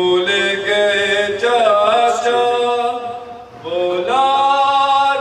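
A man chanting solo and unaccompanied into a microphone: long, drawn-out melodic phrases with slow slides between held notes. There is a short break about three and a half seconds in before the next phrase begins.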